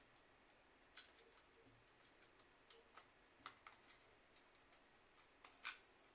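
Faint, irregular clicks and light taps of small plastic parts and tools being handled while a Tuya Zigbee radiator thermostat valve is taken apart, with the loudest click near the end.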